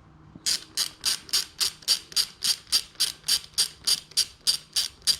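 Ratchet clicking in quick, even strokes, about three and a half a second, starting about half a second in, as the crankset's bolt is backed out.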